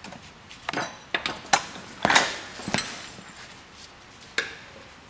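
Metal clanks and knocks as a truck's steering linkage is picked up off a concrete floor and handled: half a dozen sharp strikes, the loudest about two seconds in.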